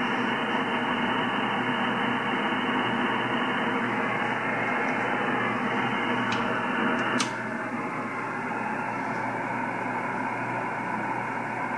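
Ham radio receiver's single-sideband audio on the 10-metre band: steady hiss of band noise and static, cut off above about 3 kHz by the receive filter. About seven seconds in there is a sharp click, and the hiss then carries on a little quieter.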